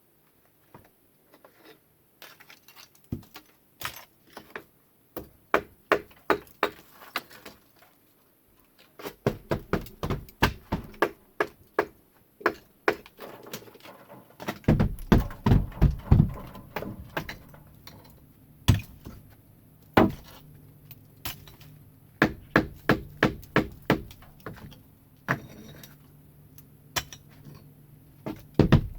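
Hand tools knocking and prying on a roof, hammer and pry bar working at asphalt shingles and metal flashing, in quick runs of sharp strikes. A low steady hum sits under the later strikes.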